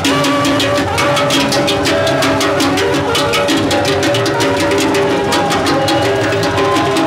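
Lively percussion-driven music: fast, dense drumming under held pitched notes.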